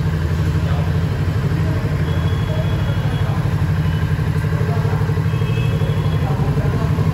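Kawasaki Ninja 650's parallel-twin engine idling steadily, a low, even beat with no revving.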